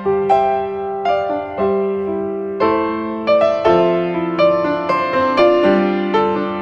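Background piano music: a gentle melody of single struck notes, each fading away, over lower held notes.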